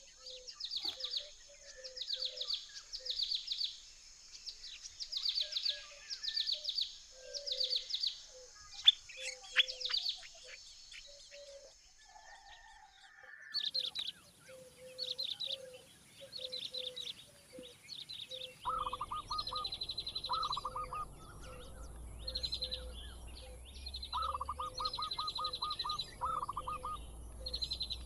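Birds calling: high, rapid chirping in short bursts about once a second. About two-thirds through, a lower call made of quick repeated pulses joins in, coming in bursts of its own.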